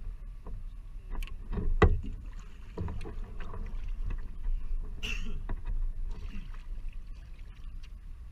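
Single-bladed paddle strokes of an outrigger canoe (OC1) catching and pulling through the water, with splashes and drips, over a steady low rumble. A sharp knock a little under two seconds in is the loudest sound, and a hissing splash comes about five seconds in.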